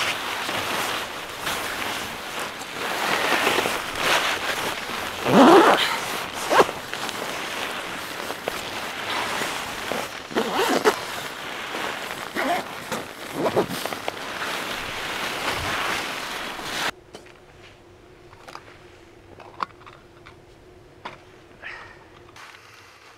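Nylon sleeping bag and clothing rustling and sliding as a person shifts and pulls the bag up around himself inside a tent, with several sharp zipper-like rasps. About two-thirds of the way through it drops off suddenly to a much quieter scene with a faint steady hum and a few soft ticks.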